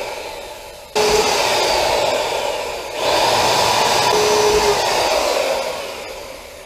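Electric plunge router running at high speed, its bit cutting a square hole through the plastic deck of a kayak, with a high whine that drops in pitch under load. The level jumps abruptly about a second in and again about three seconds in, and the motor winds down near the end.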